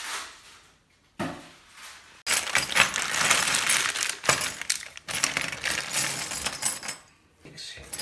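A clear plastic bag crinkling as hands rummage through it, with the metal furniture screws, washers and Allen key inside clinking against each other. It starts a couple of seconds in after a light knock or two, and pauses briefly near the end.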